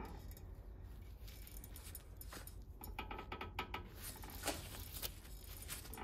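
Screwdriver levering a Mercedes B-Class W245 front brake caliper against its pad to push the piston back: irregular small metallic clicks, ticks and scrapes, getting busier in the second half.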